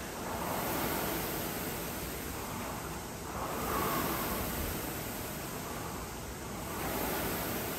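Concept2 rowing machine's fan flywheel whooshing, swelling with each stroke and easing between, about one surge every three seconds.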